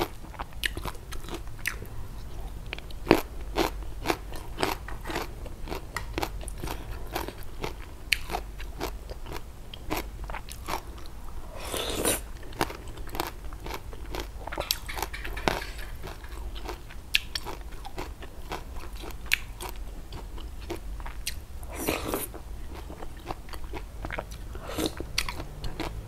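A person chewing crunchy raw vegetables and vegetable laab close to a clip-on microphone: a long run of irregular crisp crunches and chewing, with two longer, noisier sounds about twelve and twenty-two seconds in.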